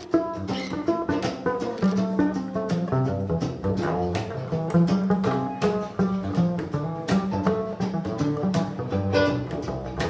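Acoustic string band playing an instrumental break: an upright bass plucks a moving bass line under fast picked lead notes and acoustic guitar, with frequent sharp hand-percussion hits.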